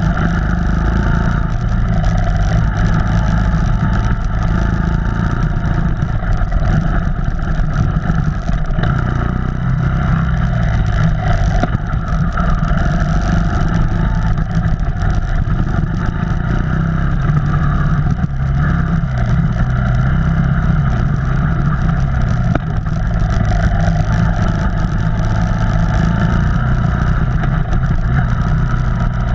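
Off-road vehicle engine running steadily under way on a trail, with small rises and falls in revs.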